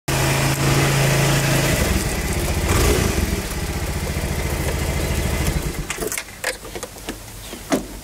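Small motor scooter engine running, with a steady hum at first and then a fast, even firing pulse. About six seconds in the engine sound drops away, leaving a few short clicks.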